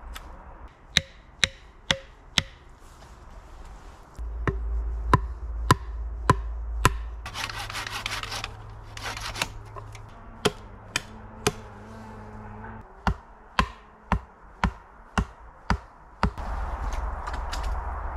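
Sharp knocks of a blade striking wood, a hatchet chopping and tapping at a wooden stake, in runs of four to six blows about two a second. A few seconds of rough scraping fall in the middle, and a steady rasping begins near the end.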